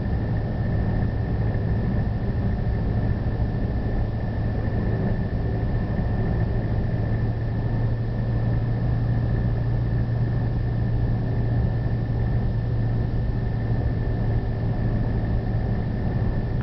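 A 1993 Toyota Hilux's 2L 2.4-litre four-cylinder diesel engine running at a steady cruise of about 55 km/h, heard from inside the cab as an even low drone with a thin high whine over it. The engine has done 300,000 km and, in the owner's words, is still working fine.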